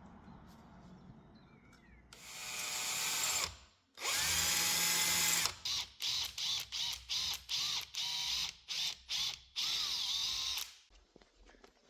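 Power drill run in bursts: it spins up about two seconds in, runs steadily for a second and a half, is then pulsed on and off in a quick string of short trigger presses, and a last short run stops about a second before the end.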